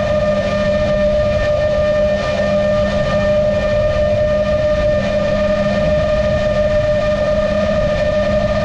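Onboard sound of a GEPRC MOZ-7 seven-inch long-range FPV quadcopter in cruising flight: its motors and propellers whine steadily at one pitch. Wind rumbles on the camera's microphone underneath.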